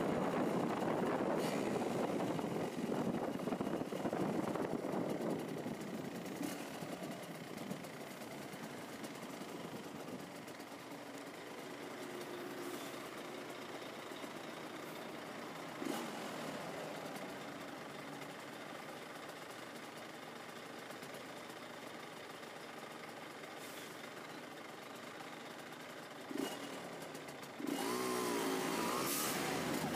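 Yamaha DT200 single-cylinder two-stroke engine: wind noise over the microphone while riding for the first few seconds, then the engine idles at a standstill, and near the end it is revved, its pitch rising and falling.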